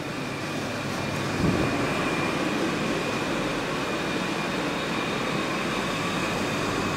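Steady whirring and rushing noise with a faint high whine from a Segway personal transporter rolling along, getting somewhat louder about a second and a half in.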